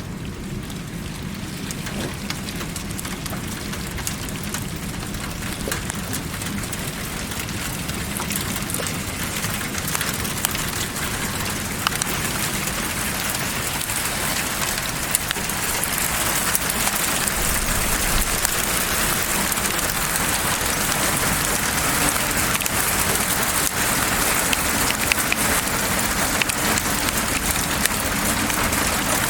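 Steady hiss with many small scattered ticks, like rain falling on a surface, getting gradually louder over the second half.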